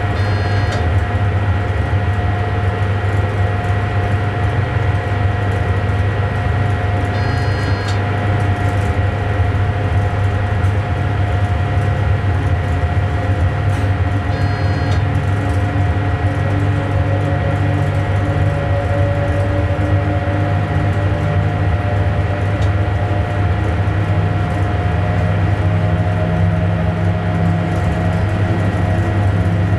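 Electric train running steadily, heard from inside the driver's cab: a loud low hum with a steady electrical whine over it, and a fainter whine that rises slowly in pitch in the second half. A short high electronic chirp sounds three times, about seven seconds apart.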